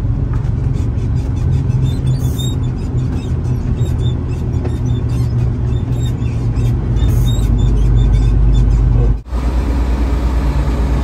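Tractor-trailer's diesel engine running steadily under way, heard from inside the cab as a low drone with road noise. The sound cuts out for an instant about nine seconds in and the drone carries on.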